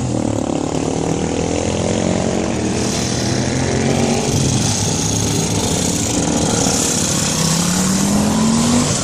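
Vintage motorcycle engines running as the bikes ride slowly past. One engine revs up with a rising pitch near the end as it pulls away.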